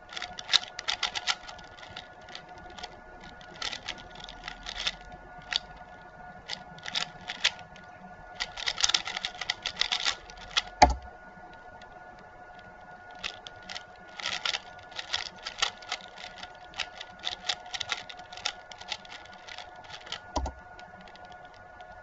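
Stickerless Valk 3 speedcube being turned fast by hand: rapid plastic clicking and clacking of the layers in bursts. A single thump comes about halfway through, the turning pauses for a couple of seconds, then resumes, and another thump comes near the end.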